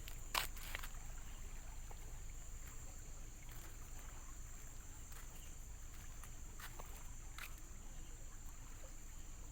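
Quiet night ambience of an oil-palm plantation: a steady high-pitched insect drone with a low rumble beneath it. A sharp click about half a second in and a few faint ones later are scattered footsteps or handling of the phone.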